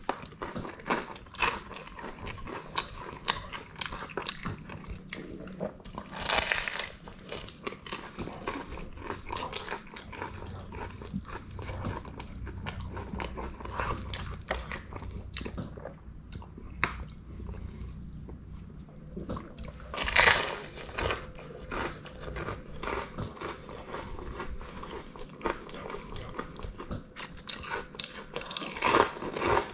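Close-miked eating of a toasted breakfast sandwich: steady chewing and crunching, with louder crunchy bites about 6 seconds in, about 20 seconds in and near the end.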